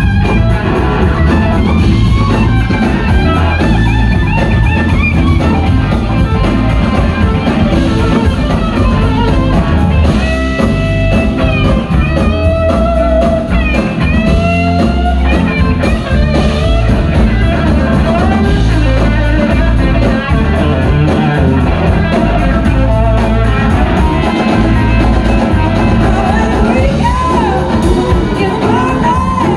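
Live blues-rock band playing loud, heard from the audience: an electric guitar lead with gliding notes over drums and bass. A woman's singing voice comes in near the end.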